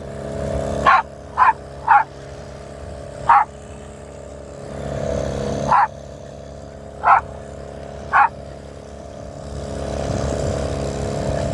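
A dog barking in seven short, sharp barks at irregular spacing, over a steady low hum.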